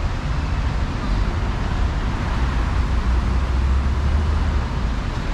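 Steady city road traffic: cars and buses running past on the road beside the pavement, a constant low rumble with an even hiss of tyres.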